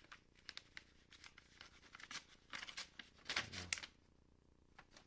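Metal tactical pen being handled: a run of short scratchy strokes and light clicks, busiest about three and a half seconds in.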